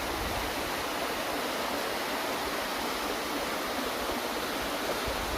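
Waterfall's rushing water, a steady even hiss.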